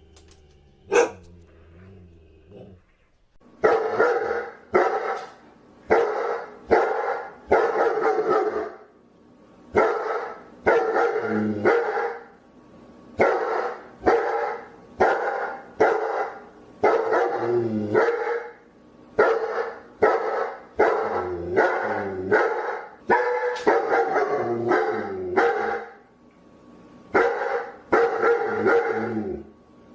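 A dog barking over and over, about one bark a second in runs with short pauses, starting about three and a half seconds in. Before that it is quiet except for one sharp click.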